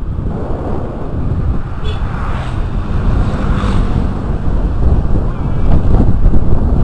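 Wind buffeting the microphone of a moving motorcycle: a loud, steady low rumble of rushing air that grows louder over the last couple of seconds.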